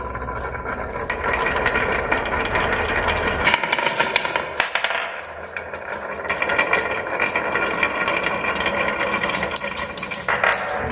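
Marbles rolling and clattering down a marble run, with a steady rolling rumble and many sharp clicks as they knock against the track and each other, thickest about four seconds in and again near the end.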